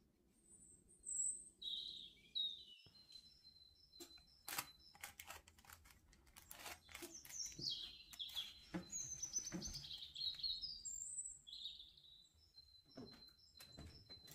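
Small birds chirping and twittering, with a short high note repeated in quick runs and gliding whistles between. Light knocks and scrapes from a loaf pan and spatula being handled come in between, most of them in the middle.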